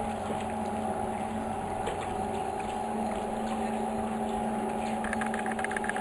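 Small open boat's motor running at a steady speed: a constant, even hum.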